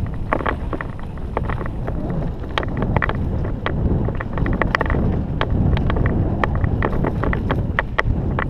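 Wind buffeting the microphone of a helmet-mounted camera on a mountain bike descent, over a steady rumble of tyres on a rough dirt trail. Frequent sharp clicks and knocks, several a second, from the bike jolting over the ground.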